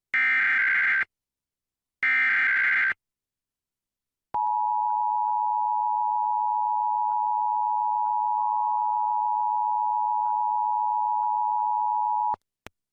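Emergency Alert System broadcast: the last two of three one-second SAME header data bursts, then the EAS two-tone attention signal (853 and 960 Hz together) held steady for about eight seconds and cut off abruptly, opening a required monthly test.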